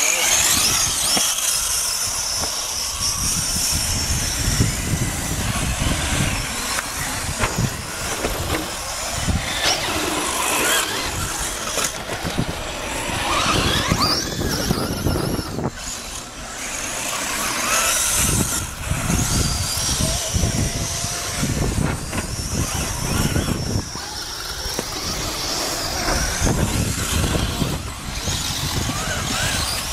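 Brushless electric RC cars' motors whining, rising and falling in pitch as they accelerate and slow on the sand, with wind buffeting the microphone.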